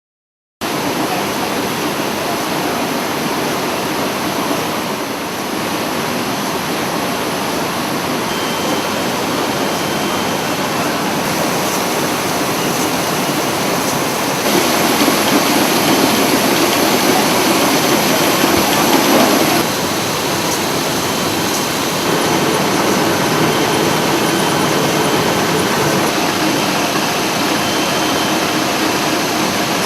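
Ruwac industrial vacuum extraction system running: a steady rush of air and motor noise that starts abruptly about half a second in. It grows louder for about five seconds about halfway through, then drops back and steps up slightly again.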